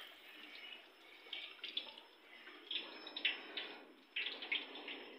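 Hot oil sizzling steadily in a wok as pakoras deep-fry, with frequent irregular crackles and pops.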